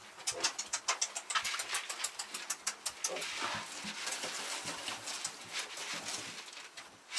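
Dry pig prestarter feed rattling as it is poured from a plastic bucket into a wooden feeder, many quick ticks with a hissing pour midway. Weaned piglets grunt around it.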